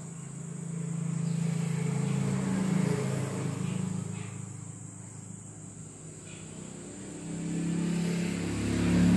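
Motor vehicle engines passing by twice, each a low rumble that swells up and fades away over a few seconds; the second is still building near the end.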